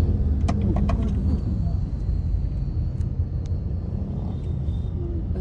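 Steady low rumble of engine and road noise heard from inside a moving vehicle in city traffic, with a few sharp clicks about half a second to a second in.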